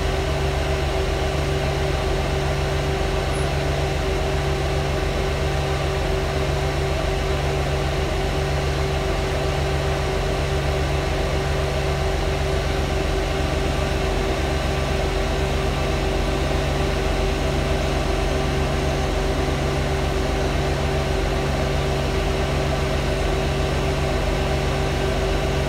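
Loud fan in the passenger saloon of an Alexander Dennis Enviro200 bus: an unchanging rushing drone with a steady mid-pitched whine, over the low hum of the bus running.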